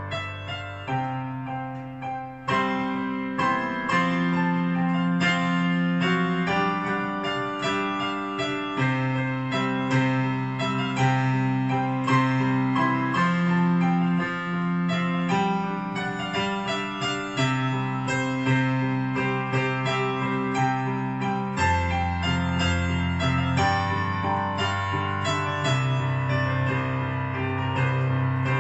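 Portable electronic keyboard played with an electric-piano tone: sustained chords and melody over held bass notes. A deeper bass note comes in about three quarters of the way through.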